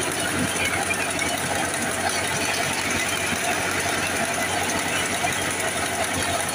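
Al-Ghazi tractor's diesel engine driving a wheat thresher, running steadily, with the threshing machine's fast, dense mechanical rattle as wheat is fed in.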